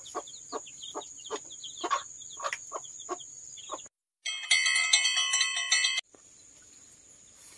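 Broody kampung hen clucking in quick short calls, about three or four a second, with newly hatched chicks peeping. About four seconds in, a bright chiming jingle plays for about two seconds.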